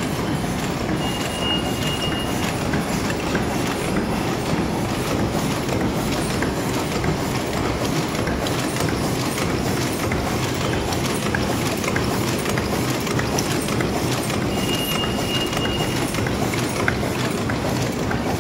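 High-speed paper cup making machine running: a steady, dense metallic clatter of rapid clicks from its feed, turret and forming mechanisms. A thin high tone sounds briefly twice over it.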